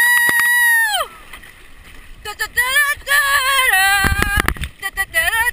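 A woman's long, high, held scream that cuts off about a second in, followed by further yells that waver in pitch. A low rush of water hits the chest-mounted camera about four seconds in as the slide ends in a splash.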